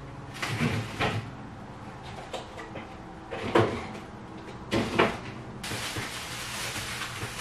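Kitchen groceries being put away: items knocked and set down on refrigerator shelves, a few separate clunks, then the fridge door shutting and a cupboard door opening about five seconds in.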